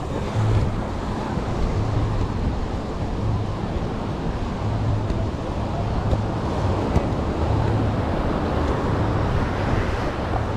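Wind rumbling on the microphone over a steady wash of surf.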